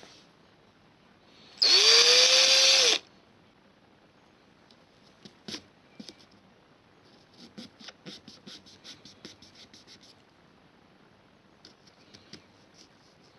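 Power drill run once for about a second and a half while boring into a pumpkin, its motor whine rising as it spins up and falling as it stops. Light clicks and scrapes follow, sparse at first, then in a quick run for a few seconds, and again briefly near the end.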